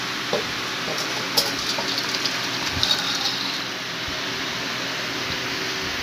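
An aluminium kadai clinking and scraping against a steel bowl as thick fish curry is poured out of it, a run of sharp knocks in the first few seconds, over a steady hiss.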